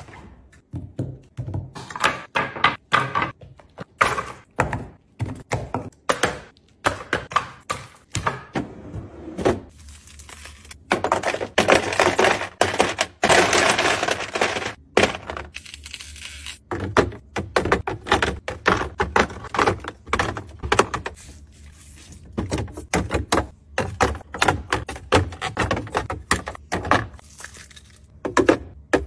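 Ice cubes clattering and knocking. Near the middle comes a long run of cubes tumbling into a freezer bin. Around it are many short taps, clunks and cracks of ice being handled and pried from a silicone tray.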